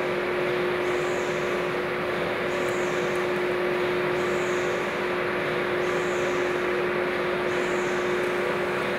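Steady drone of machinery running in a woven plastic-sack factory, with a constant hum tone and a faint high hiss that recurs about every 1.3 seconds.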